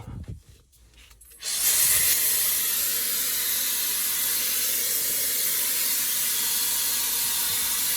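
Brushless high-speed hair dryer with its hair-brush attachment switched on about a second and a half in, then blowing air steadily with a loud rushing hiss and a faint high-pitched whine.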